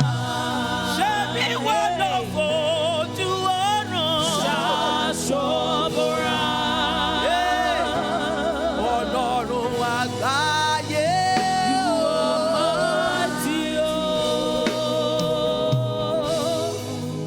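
Gospel praise-and-worship song: voices singing long held notes with vibrato over continuous musical accompaniment.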